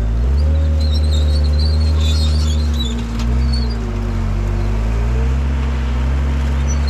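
John Deere 326D skid steer's diesel engine working under load. Its pitch dips and recovers a few times as it pushes fill dirt, and a whine rises and falls above the engine note.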